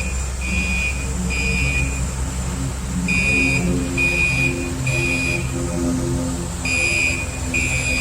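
Fire alarm sounding the temporal-three evacuation pattern: three high beeps of about half a second each, then a pause, the group repeating about every three and a half seconds.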